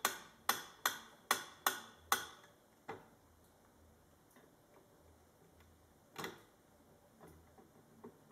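Mechanical pendulum metronome ticking, about two and a half ticks a second, then stopping about two seconds in as a kitten's paw catches the pendulum. After that only a stray tick and, about six seconds in, a single louder knock.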